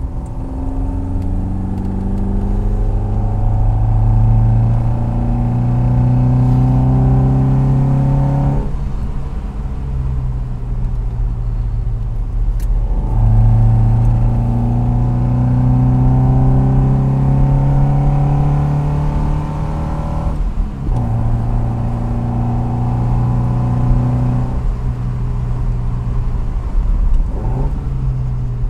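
Alfa Romeo Giulia 1300 TI's twin-cam four-cylinder engine heard from inside the cabin while driving. It pulls up slowly in pitch under acceleration, breaks off at gear changes about 9 and 21 seconds in and picks up again lower, then runs more evenly near the end.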